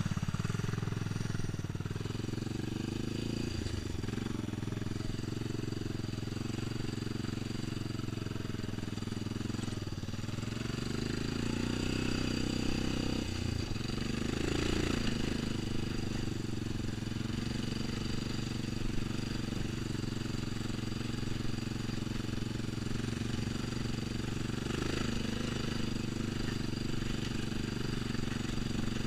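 ATV engine running steadily as the quad rides along a dirt trail, its note rising and falling a few times with the throttle, with an occasional knock from the bumpy ground.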